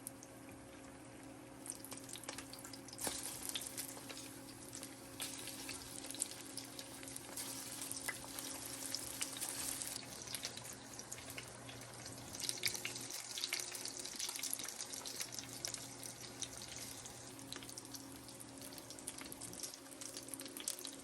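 Kitchen cooking noise: a steady crackling hiss of fine ticks, with a faint low hum underneath.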